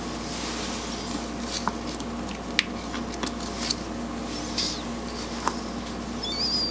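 A few sharp little clicks and faint rustles of alligator clips and hookup wires being handled and clipped on, over a steady low background hum.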